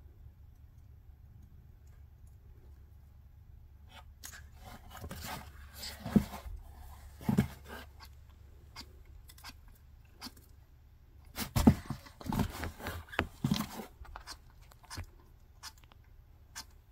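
African bullfrog biting down on a giant centipede in its mouth: two bouts of sharp clicks and crunches with a few low thuds, the first starting about four seconds in and the second about eleven seconds in, with a few scattered clicks after.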